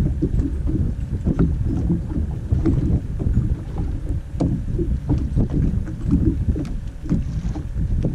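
Wind buffeting the microphone while choppy water laps at a fishing boat's hull, with a few light clicks and knocks.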